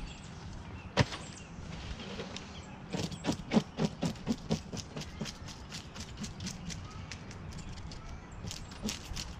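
Tilapia being handled on a plastic folding table. There is one sharp knock about a second in, then a quick run of taps and scrapes around the middle, fading into lighter clicking.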